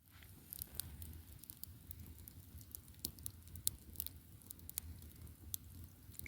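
Campfire crackling faintly, with irregular sharp pops and snaps over a low steady rumble.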